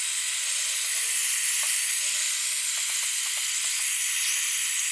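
Blowtorch flame hissing steadily, with a few faint ticks.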